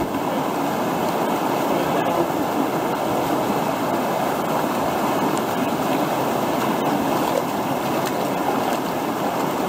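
Steady rush of whitewater: a river wave pouring and breaking over a rock ledge.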